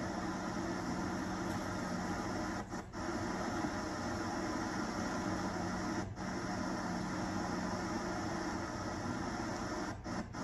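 Steady static hiss with a low hum from a blank stretch of videotape, dropping out briefly about three seconds in, again at six seconds, and twice near the end.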